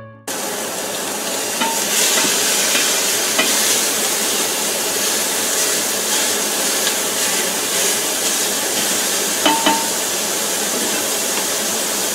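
Italian sausage meat sizzling steadily as it fries in a large metal pot, with a spoon stirring it and clinking against the pot a few times.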